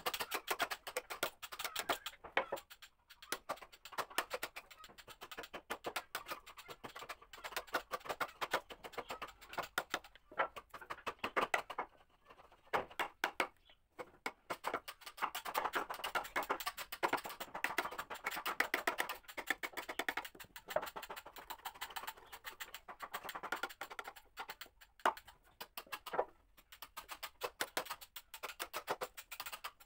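Hammer striking a wood chisel that is chopping a joint recess into a teak window-frame beam: rapid, repeated sharp taps of steel on the chisel and the blade biting into the wood, with short pauses between runs of blows.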